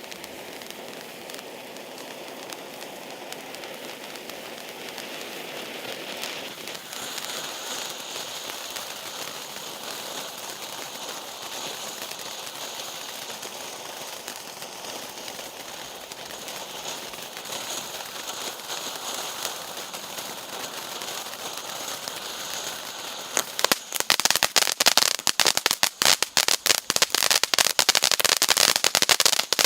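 A P4220 'Sverchok' (Cricket) firework burning with a steady hissing crackle and a faint high tone over it. About six seconds before the end it breaks into a fast, much louder run of sharp crackling pops.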